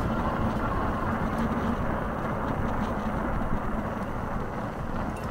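Steady low rumble of a fat-tyre electric bike being ridden uphill: tyres rolling and air moving over the bike. A faint steady hum under it fades out about four seconds in.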